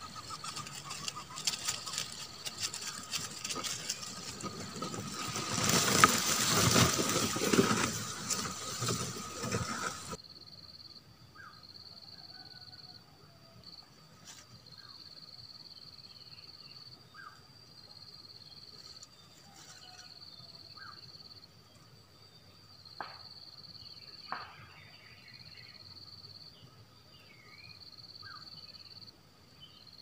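Grass and dry leaves rustling close to the microphone, loudest about six to eight seconds in, stopping suddenly about ten seconds in. Then faint birdsong of short chirps over a high, steady insect-like buzz that breaks off and resumes, with two sharp clicks near the end.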